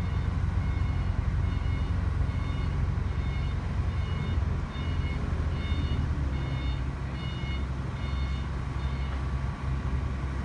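Diesel engine of a Sumitomo ST500M mechanical truck crane running steadily with the crane under load, a counterweight hanging from its hook. A high-pitched warning beeper sounds about twice a second from about a second in until near the end.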